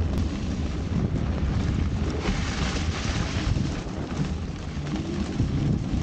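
Wind buffeting the microphone of a moving camera, over the low rumble of an e-bike's fat tyres rolling on packed snow. A stretch of louder hiss comes a little past two seconds in.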